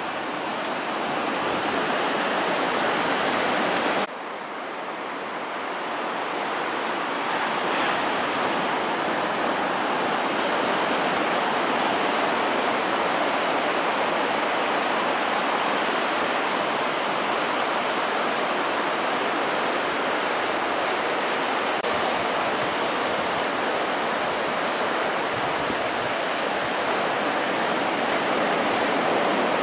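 Small ocean waves breaking and surf washing onto the beach: a steady rushing noise. It drops suddenly about four seconds in, then builds back up.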